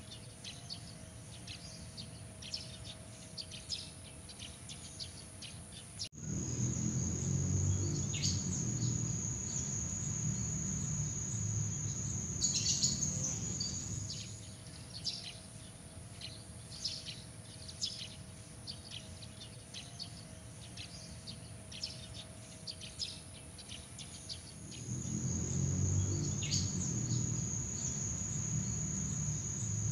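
Outdoor night ambience: insects trill steadily at a high pitch under many short bird chirps. An abrupt low rumble comes in about six seconds in, fades out about halfway through, and returns near the end.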